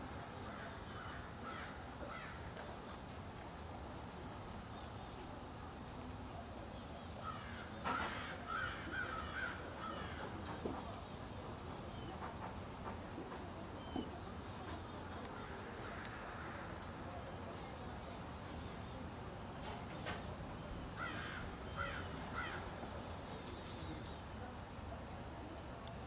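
Outdoor ambience with a steady high insect drone, broken by two bouts of harsh bird calls, about 8 seconds in and again around 21 seconds in.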